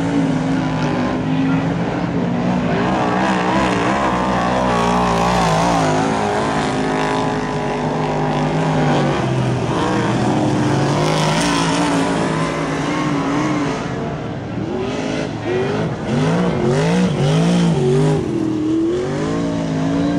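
Superstock race car engines running hard on a speedway oval, pitch wavering as the cars race close together. In the last few seconds come several quick rises and falls in revs.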